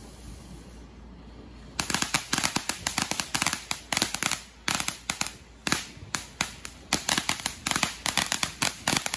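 Ground firework crackling. About two seconds in, a rapid, dense run of sharp cracks and pops starts and goes on, broken by a few brief lulls.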